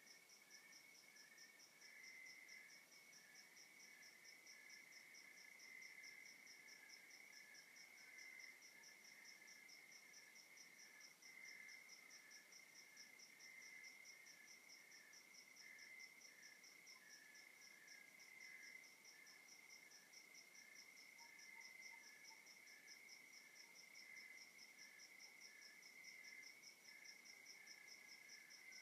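Faint night chorus of crickets: a high, fast, evenly pulsing chirp over a steady lower trill, with a slower chirp repeating about once a second beneath it.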